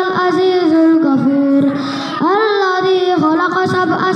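A boy chanting Quran recitation in a melodic, drawn-out style, holding long notes that glide between pitches. There is a short pause for breath about two seconds in.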